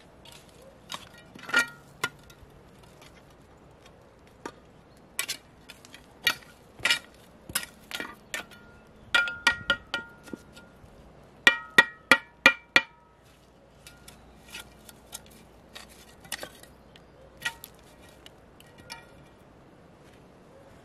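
A small metal trowel knocking and scraping against stones in stony ground, in scattered sharp clinks, some with a brief metallic ring. A quick run of four loud strikes comes a little past halfway.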